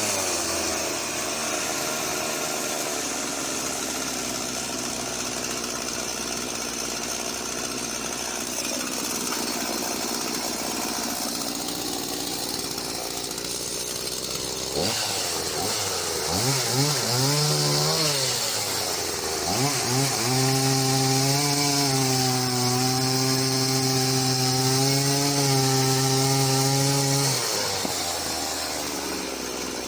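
Husqvarna Rancher 50 two-stroke chainsaw cutting through a knotty fir log. About halfway through, the engine's pitch swings up and down, then holds high and steady for several seconds before dropping away near the end.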